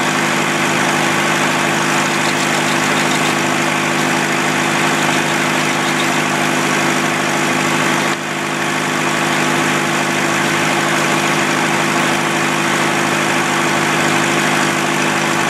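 Early-1900s shingle mill running steadily, its large circular saw spinning with a steady hum under a dense rushing noise. The level dips briefly about eight seconds in.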